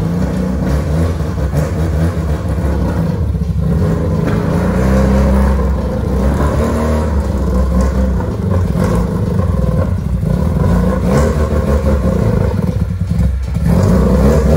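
Mazda RX-7 FC's 13B rotary engine running at low revs as the car rolls slowly forward. Its sound drops briefly twice, once about three and a half seconds in and once near the end.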